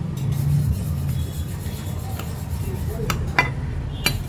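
Butcher's steel cleaver chopping mutton on a wooden chopping block: three sharp chops in the second half, over a steady low hum.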